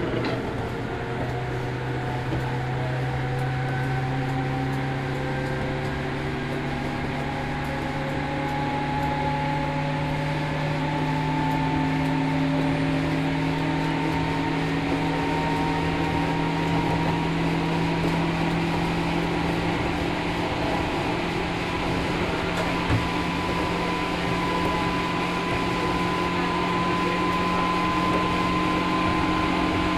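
Ride-along sound inside a JR Kyushu 103 series 1500-subseries motor car: the MT55 traction motors and gears whine in several tones that slowly rise in pitch as the train gathers speed, over steady wheel and rail noise. One faint click comes about three quarters of the way through.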